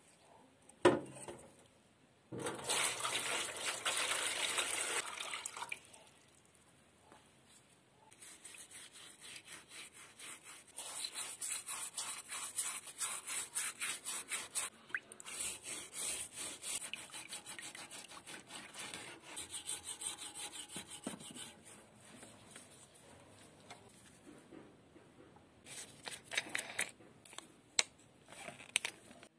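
A heavily rusted steel nail puller being rinsed in a metal tray of water after boiling. A knock comes about a second in, then a few seconds of rushing water, then long runs of quick back-and-forth scrubbing strokes with short pauses.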